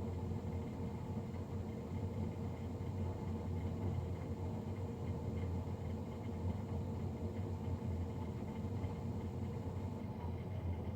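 Navien NCB-240 combi boiler's combustion blower fan running with a loud, steady low hum and a faint steady whine above it.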